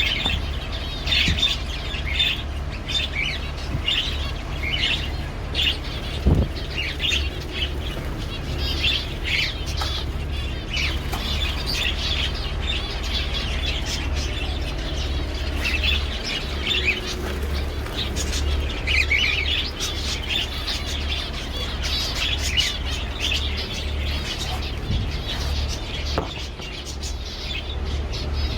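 Many small cage birds chirping in quick, short notes throughout, over a steady low rumble.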